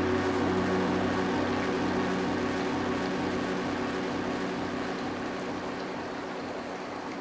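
Steady rush of a mountain stream's riffles and small falls, under the held tones of an ambient background music track that fades away.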